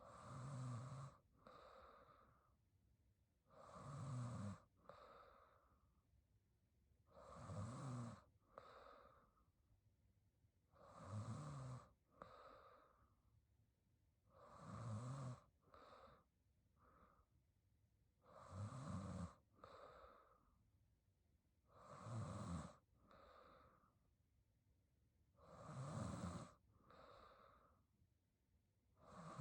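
A woman snoring softly in her sleep: slow, even breaths about every three and a half to four seconds, eight in all, each a low snore followed by a shorter, softer breath.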